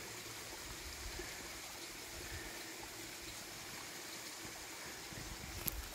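Hot spring water trickling and flowing steadily over rocks, with one sharp click near the end.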